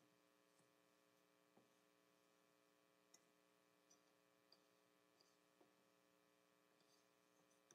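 Near silence: a faint steady electrical hum, with a few faint scattered ticks.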